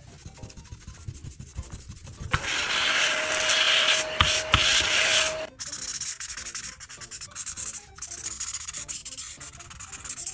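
Alcohol art marker's felt tip rubbing and scratching on paper while colouring in. Quick back-and-forth strokes, with a louder stretch of continuous scratching from about two to five seconds in, broken by two sharp ticks.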